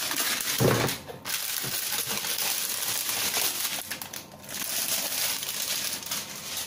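Plastic packaging bag crinkling and rustling as it is torn open and pulled off a computer power supply, with short pauses about a second in and again about four seconds in.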